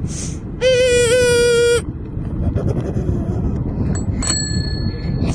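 Child's bicycle in motion, with a steady low rumble of rolling and wind. About half a second in, a loud, steady, high-pitched tone sounds for about a second and stops abruptly. Near four seconds there is a light click and a short metallic ding.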